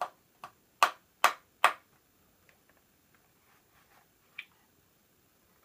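Five sharp taps in quick succession, about two a second, then one fainter click a few seconds later: a small object being knocked against a hard edge to empty it out.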